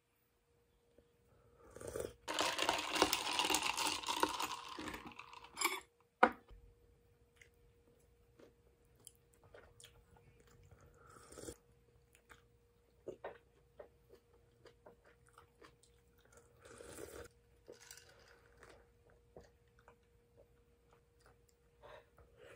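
Close-up eating sounds: a loud, noisy sip of hot kimchi stew broth from a spoon lasting about three seconds, a sharp clink of the spoon about six seconds in, then quiet chewing with light clicks of the utensils.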